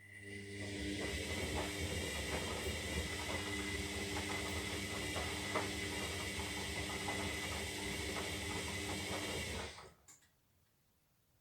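Zanussi Lindo 300 washing machine's drum turning during a 60-degree synthetic wash: a steady motor hum with a high whine and irregular clicks from the tumbling load. It starts at once, runs for about ten seconds and stops suddenly, as the drum pauses before turning again.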